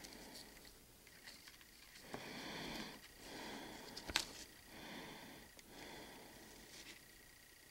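Faint breathing through the nose near the microphone, in slow swells about a second long, over quiet handling of fishing line and a barrel swivel, with a sharp click about four seconds in.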